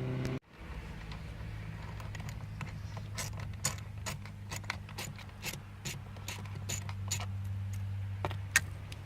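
Ratchet wrench clicking in short runs as the bolts holding the steering-wheel airbag are loosened, with one sharper click near the end. A steady low hum runs underneath.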